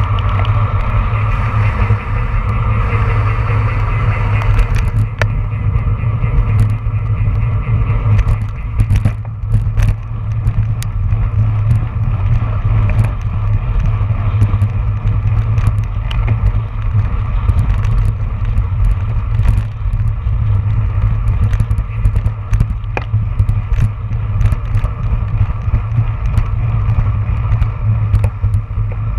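Wind rushing over the microphone of a camera on a road bike at racing speed, a heavy low rumble, with scattered clicks and rattles from the bike and road.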